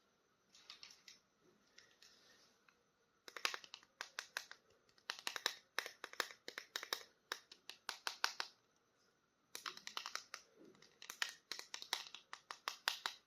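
Plastic toy packaging crinkling and crackling as it is handled and opened. There is faint rustling at first, then runs of quick sharp crackles from about three seconds in, with a short pause near nine seconds.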